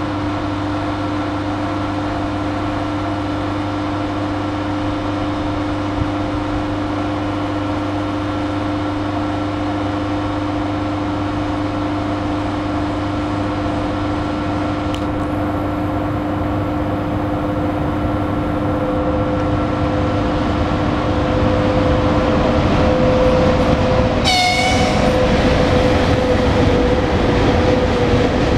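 VL80S twin-section electric locomotive approaching with a freight train, its electrical equipment and blowers humming steadily with several held tones, growing louder as it nears. A short horn blast sounds about 24 seconds in, then the wagons pass with rail noise.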